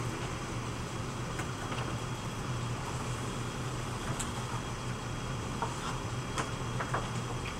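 Electric potter's wheel turning with a steady low hum, and a few faint ticks of a tool or fingers on the clay in the second half.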